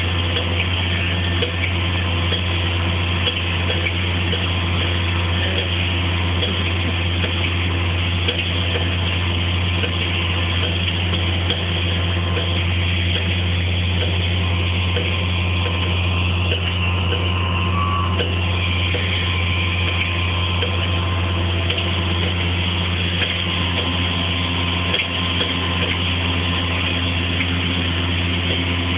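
Tractor diesel engine running steadily at constant speed, a deep even hum that does not change.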